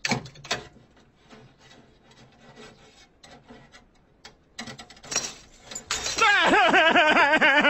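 Faint scraping and rubbing with soft clicks, a few louder knocks about five seconds in, then a cartoon man's long yell, its pitch wavering up and down, from about six seconds in.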